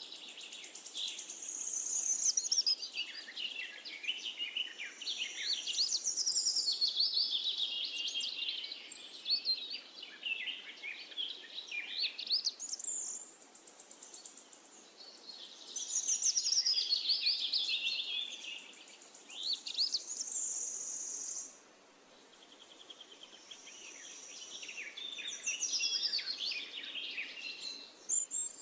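Songbirds singing: a dense, continuous run of high-pitched chirps and trills. The song drops out abruptly about three-quarters of the way through, then picks up again.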